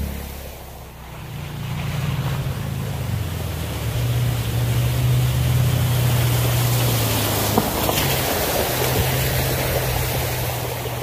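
Toyota Tacoma pickup driving through a muddy water crossing: its engine runs at a steady pitch while water splashes and sloshes around the tyres. It grows louder over the first few seconds as the truck approaches and passes close by.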